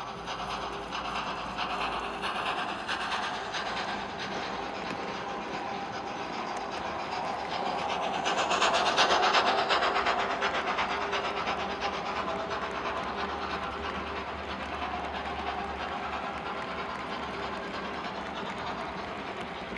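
Sound-fitted OO gauge model of a Thompson A2 Pacific steam locomotive running, its Locoman Sounds steam profile playing through the decoder's speaker, swelling loudest about halfway through and then easing back.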